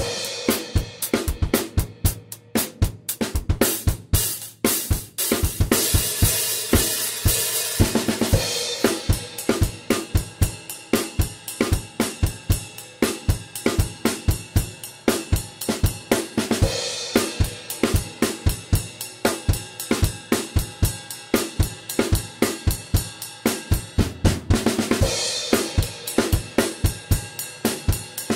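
Acoustic drum kit with Meinl cymbals playing on its own: a steady groove of kick, snare and hi-hat strokes, with several cymbal crashes and a sparser run of hits in the first few seconds.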